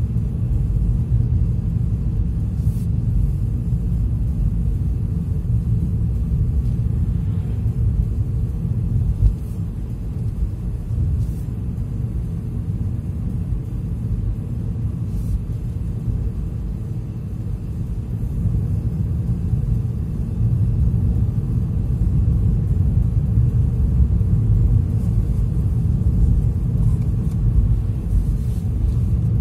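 Steady low rumble of a car driving along the highway: road and engine noise, with a few faint clicks.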